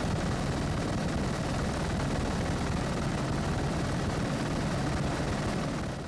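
Helicopter engine and rotor noise as heard from aboard, a steady low drone with a fast flutter.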